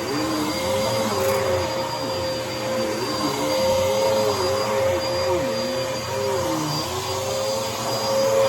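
Dirt Devil Breeze cyclonic vacuum cleaner running steadily, a constant whine over rushing air, with its motor pitch wavering up and down as it works.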